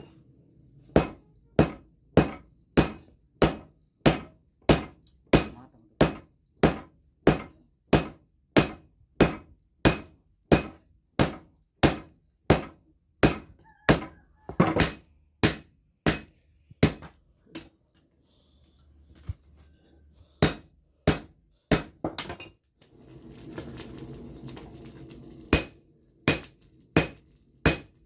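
Hammers striking red-hot steel on a small anvil in a steady rhythm of about two blows a second, forging a blade from very hard crusher-blade steel. The blows stop for a few seconds past the middle, with a short stretch of rushing noise, then start again near the end.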